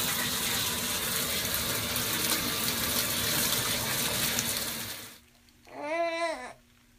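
Water rushing into the tub of a top-loading washing machine as it fills, a steady gushing that cuts off suddenly about five seconds in. A toddler gives a short vocal sound just after.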